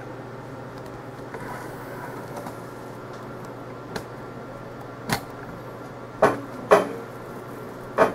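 A steady low hum inside an enclosed booth, broken by five sharp knocks: a light one about four seconds in, another a second later, two loud ones close together past the six-second mark and a last loud one near the end.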